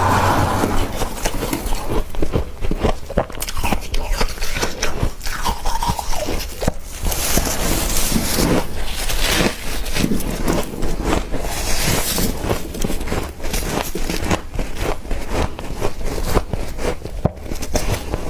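Soft freezer frost being bitten and chewed close to the microphone: a dense, irregular run of small crunches with some scraping.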